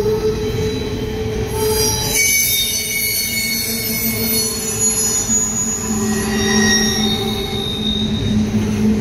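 Norfolk Southern intermodal train's double-stack container cars rolling past, with steady rumbling and wheel squeal. High-pitched squealing tones come in about two seconds in and shift in pitch as the cars go by.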